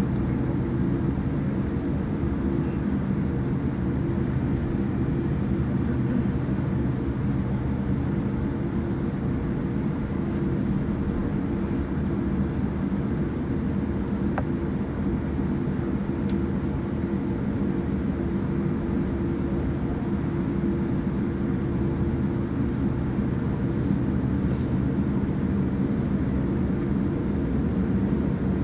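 Steady low hum and rumble inside the cabin of a Boeing 787 airliner, with no change in level.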